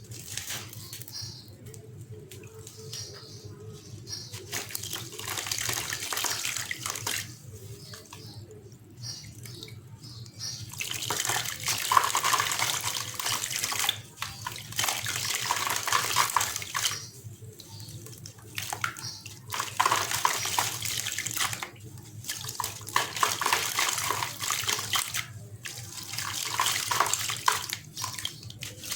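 Dried sand-and-cement chunk crumbling in water: a gritty, crackling hiss that comes in repeated surges a few seconds long, with short quieter pauses between them.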